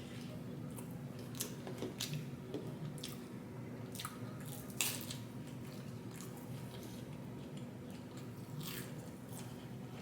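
Close-miked eating sounds: wet chewing and mouth clicks scattered irregularly, the sharpest about five seconds in, over a faint steady hum.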